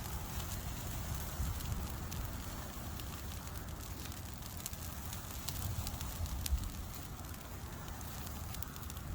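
Debris-pile fire crackling, with scattered sharp pops over low wind rumble on the microphone.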